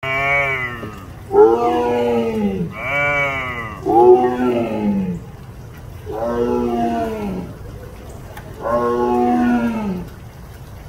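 A tiger roaring over and over, about six loud, drawn-out calls in quick succession, each dropping in pitch as it trails off.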